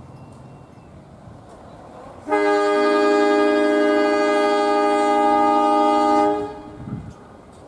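Air horn of a KAI CC 203 diesel locomotive giving one long multi-note blast of about four seconds as the train departs the station. The blast starts about two seconds in, a lower note joins a moment later, and it cuts off near the end. The low rumble of the locomotive's diesel engine is heard before and after the blast.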